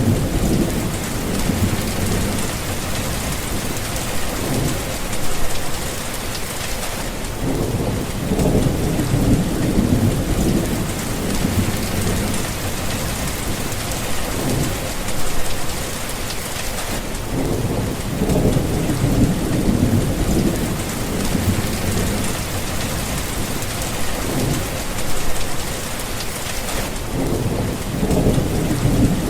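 Steady heavy rain with low thunder rumbling over it again and again, swelling and fading every few seconds. The rain hiss thins briefly about every ten seconds.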